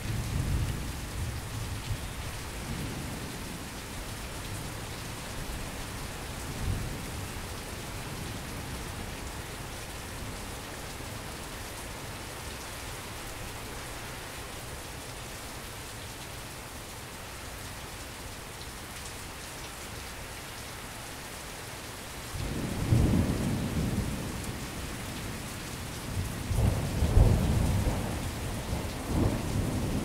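Thunderstorm: steady heavy rain falling throughout, with a low rumble of thunder at the start and a smaller one a few seconds later. About three-quarters of the way through, a loud roll of thunder begins, followed by a second, louder one near the end.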